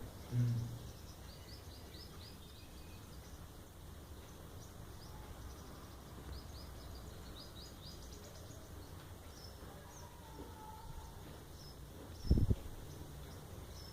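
Small birds chirping in quick runs of short high notes over a steady background hum, with a brief low thump near the end.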